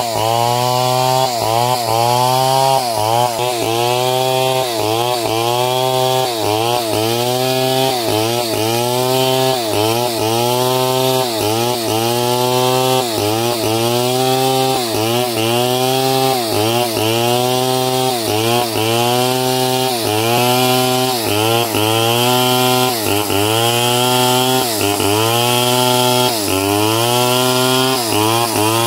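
Power saw machine cutting through timber. Its pitch dips and recovers again and again, about once or twice a second, as the blade bites into the wood, over a steady low hum.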